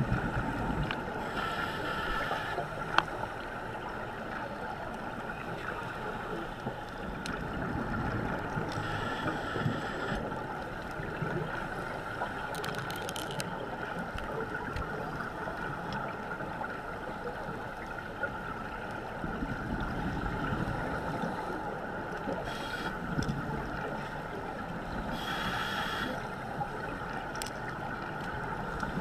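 Muffled underwater sound heard through a GoPro's waterproof housing: a scuba diver's regulator breathing, with bursts of exhaled bubbles every few seconds over a steady hum. One sharp click about three seconds in.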